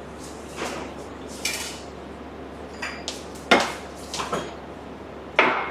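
Glasses and kitchen bowls clinking and knocking as they are picked up and moved around on a counter: about six short clatters, the loudest about halfway through and near the end.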